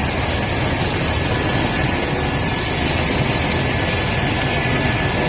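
Helicopter in flight heard from inside the cabin: steady engine and rotor noise, a loud even rush with a faint high whine held throughout.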